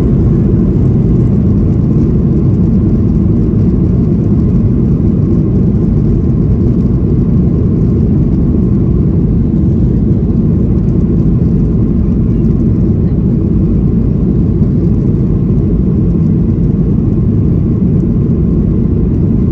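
Cabin noise inside a Boeing 737-800 taxiing: a steady, even low rumble from the CFM56 engines at idle and the wheels rolling on the taxiway, with no rise in engine pitch.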